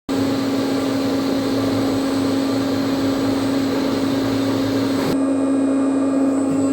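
CNC machine running on a brass part, a steady machine hum over a hiss. About five seconds in the higher hiss drops away suddenly while the hum carries on.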